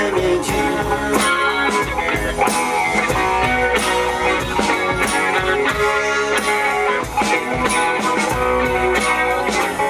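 Live rock band playing an instrumental passage: electric guitars over a steady drum beat and bass.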